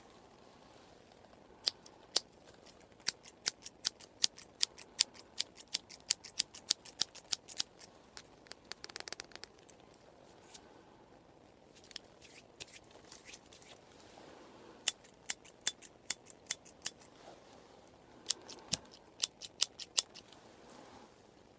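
Scissors snipping close to the microphone in quick runs of crisp clicks, about three or four a second, with short pauses between the runs. A brief rustle comes about nine seconds in.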